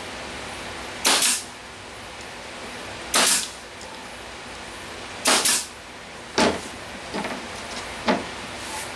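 Nail gun firing three times about two seconds apart, the third a quick double shot, driving nails through a wooden strip into a board. Three lighter knocks follow.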